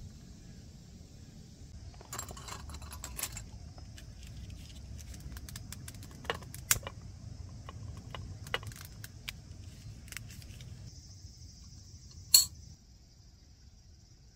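Camp cookware and utensils being handled, giving scattered light clicks and clinks, with one sharp knock about twelve seconds in.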